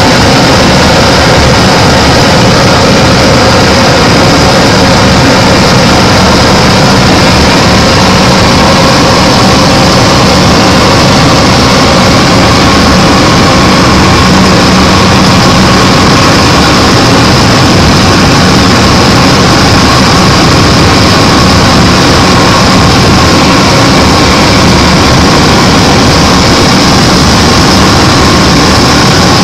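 Propeller aircraft engine and propeller running steadily, heard loud from inside the cabin, with a few steady tones over a constant rushing noise.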